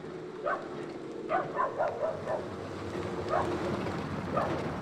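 Dogs barking in short, repeated bursts, several in quick succession about a second in, then more spaced out. A car engine approaches and grows louder near the end.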